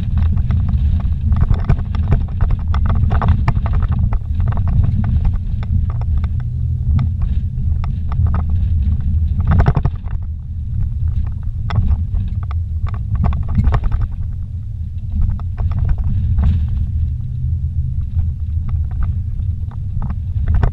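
A vehicle driving on a rough dirt track, heard from inside the cabin: a steady low engine and road rumble with frequent short knocks and rattles.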